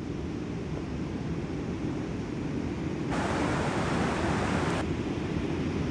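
Ocean surf with wind on the microphone: a steady rush and rumble. The brighter hiss jumps up suddenly about three seconds in and drops back a little before five seconds.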